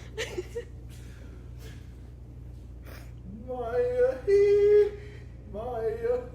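A person's voice singing or crooning a few drawn-out, wavering notes without clear words, starting about three seconds in. A steady low hum runs underneath.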